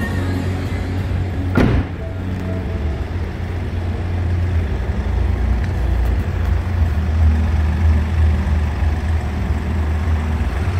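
BMW 116d diesel engine idling steadily, with a car door shut once with a single thud about two seconds in.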